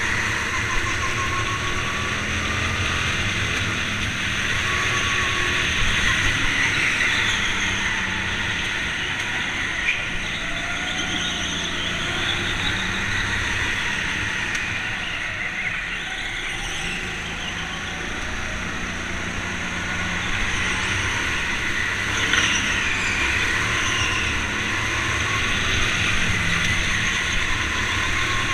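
Sodi rental go-kart driven at speed, heard from on board: the engine runs steadily, its pitch rising and falling through the corners.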